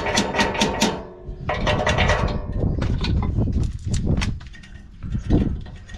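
Quick repeated metal-on-metal strikes with a ringing note: one burst at the start, another about a second and a half in, then scattered knocks.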